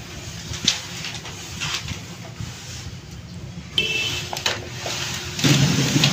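Gloved hands kneading and folding a sticky mass of pulled sugar syrup and roasted flour for patisa, with a few faint handling knocks. A brief steady tone sounds about four seconds in, and louder background noise comes in near the end.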